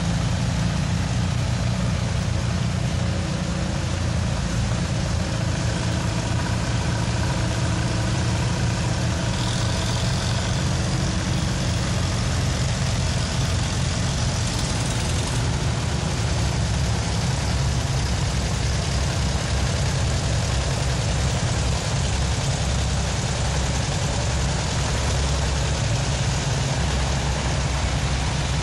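Engines of vintage farm tractors (Farmalls, an Oliver and a John Deere) running steadily at low speed as they pass one after another, a continuous low rumble.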